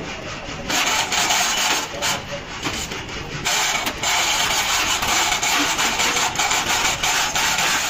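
Chain hoist being worked by hand: the hand chain rattles continuously through the hoist as it is pulled, starting about a second in, breaking off briefly near the middle, then going on.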